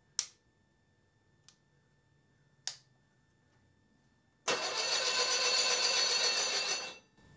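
Porsche 912 flat-four engine turned over by its starter with the spark plugs out, a steady spin of about two and a half seconds that stops suddenly: cranking to build oil pressure and check for spark. A few sharp clicks come before it.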